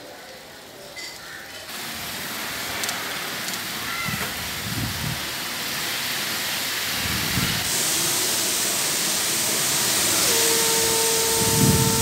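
Cyclone wind and rain: a dense, steady rush of noise that comes in about two seconds in and grows louder, turning harsher about eight seconds in. Low gusts buffet the microphone three times, and a steady whistling tone joins near the end.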